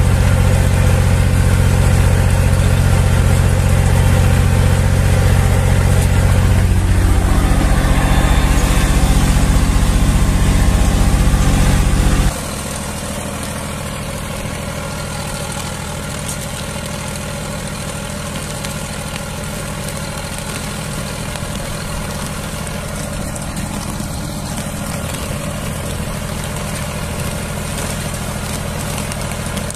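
Zetor 5011 tractor's three-cylinder diesel engine running steadily under load while pulling a two-furrow plough, loud and close as if heard from the cab. About twelve seconds in, the sound drops abruptly to a quieter, more distant engine note from the same tractor.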